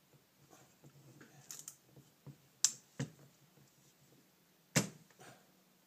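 Light clicks and knocks of a wrench and carburetor parts being handled during a carburetor bank teardown, with three sharper clicks about two and a half, three and just under five seconds in, and small rustles between.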